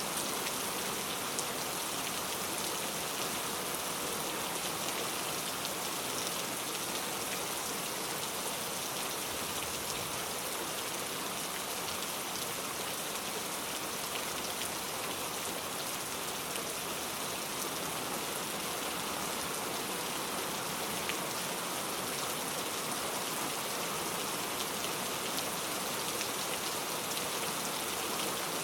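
Steady rain falling and pattering on a surface, an even hiss with faint scattered drop ticks.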